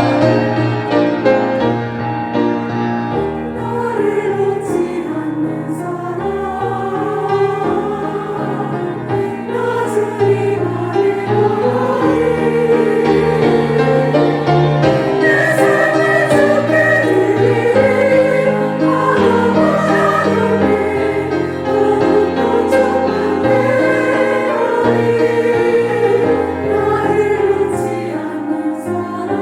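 A church choir singing a worship song, its voices moving over steady low accompaniment notes that change every second or two.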